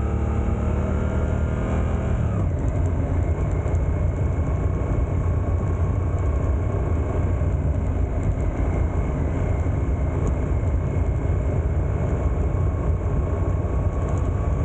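Suzuki GSX-8S parallel-twin engine pulling in first gear with rising pitch, then shifting up to second about two seconds in and running on while gently accelerating. Heavy wind rumble on the bike-mounted camera's microphone.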